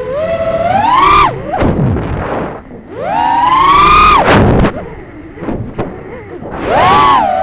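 Motors and propellers of a 6-inch FPV quadcopter (Flightclub Proton) whining in flight. The pitch climbs steeply with each throttle punch and drops off when the throttle is cut, three times, with rushing air in the lulls between.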